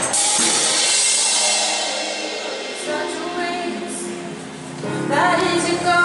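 Live pop band playing through a PA: a drum-and-cymbal hit at the start rings out and fades over a few seconds under held keyboard chords, and a woman's lead vocal comes in about five seconds in.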